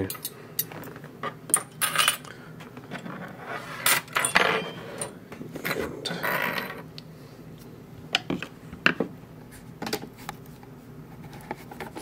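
Small metal lockpicking tools, a brass lock cylinder and a plastic parts tray being picked up and set down on a work mat: scattered light clicks and clinks, with a couple of short scrapes about four and six seconds in.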